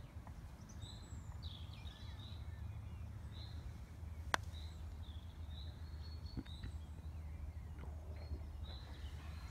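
A small bird chirping repeatedly, with short high notes about once a second, over a low steady outdoor rumble. A single sharp click about four seconds in.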